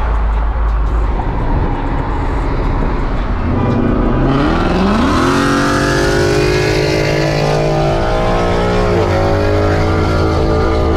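Boosted pickup truck's engine pulling hard under throttle, heard from inside the cab: it drones at first, then from about three and a half seconds in climbs steadily in pitch with a loud hiss over it. Near nine seconds in the pitch drops as the new transmission upshifts, and it starts climbing again.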